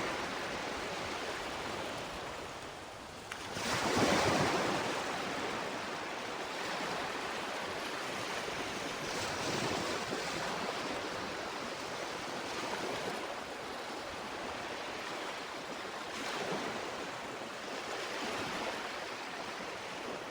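Ocean waves breaking and washing onto a beach, one big wave about four seconds in and smaller ones rising and falling after it, over a steady surf hiss.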